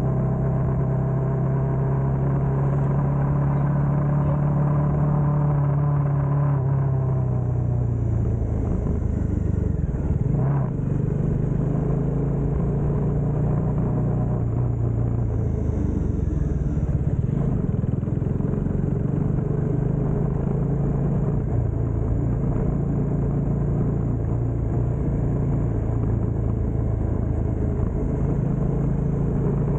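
Bajaj Dominar 400's single-cylinder engine running under way. Its pitch shifts with throttle and gears, and drops noticeably about seven seconds in.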